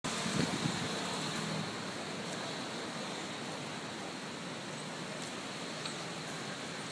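Steady, even outdoor background hiss, with a slightly louder low rumble in the first second and a half.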